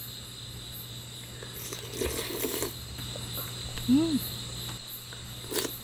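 Crickets chirping steadily, with a short 'mm' from someone eating about four seconds in and a light clink of a spoon on a dish near the end.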